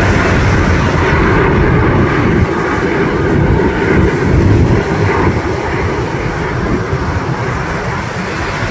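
Steady jet engine noise from a formation of CT-114 Tutor jets flying overhead, a continuous low rumble that eases slightly in the second half.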